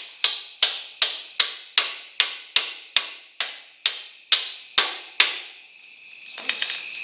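Hammer tapping on metal in an even rhythm, about thirteen sharp ringing blows at roughly two and a half a second, stopping about five seconds in. A cricket's steady high chirring comes in faintly near the end.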